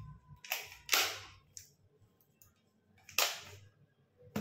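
Sharp crinkling bursts from a small plastic baking-powder packet being handled: two close together about half a second in, another about three seconds in, and a short click near the end.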